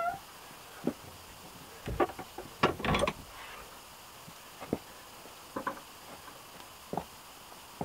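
Wooden plank door of a log house being pulled shut and fastened: a cluster of knocks and rattles about two to three seconds in, then a few single thuds of boots on wooden steps.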